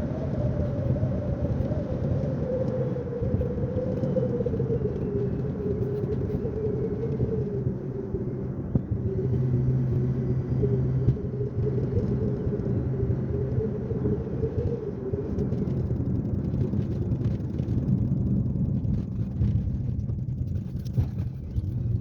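Car driving on the road: steady engine and road rumble, with a whining tone that falls in pitch over the first few seconds and then holds steady.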